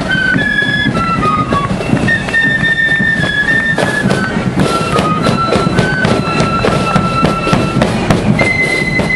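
Marching flute band playing a march tune close up: a high flute melody of held and stepping notes over a steady beat of drum strokes.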